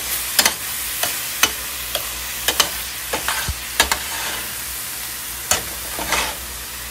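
Ground meat and carrot lumpia filling sizzling in a stainless steel frying pan as a metal spoon stirs it, the spoon clinking sharply against the pan at irregular moments over the steady frying hiss.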